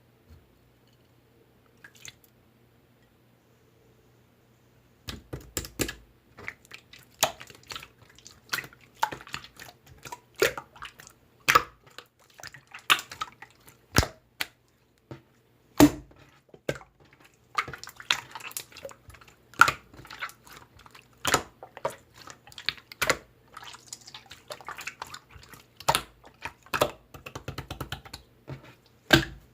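Slime being squished and pressed by hand, making irregular wet clicks and pops that start about five seconds in.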